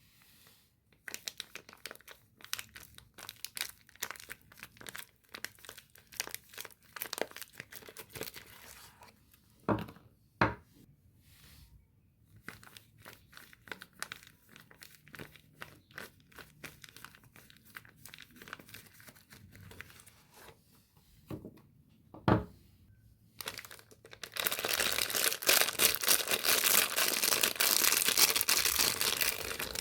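Soap wrappers being unwrapped by hand: crinkling in rapid little crackles, with a few single thumps. Near the end comes several seconds of continuous tearing.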